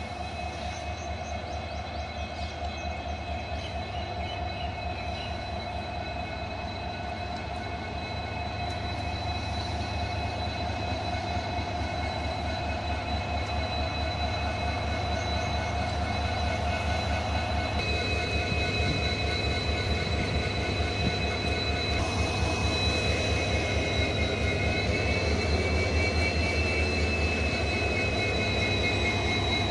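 WDP4B diesel locomotive's EMD 16-cylinder two-stroke engine running with a steady throb and a high whine as the locomotive rolls slowly closer, growing steadily louder until it passes close by near the end.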